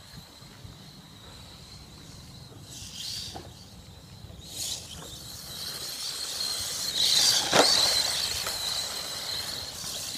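Radio-controlled LaTrax SST short-course truck with a brushless motor driving on dirt: a high motor whine that wavers in pitch and swells to its loudest about seven to eight seconds in, with a few short knocks from the truck on the dirt and gravel.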